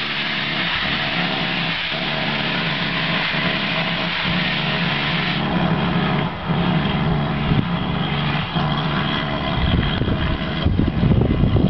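Steam locomotive pulling away: a steady rush of exhaust and steam noise over a low hum, with a deeper rumble building near the end.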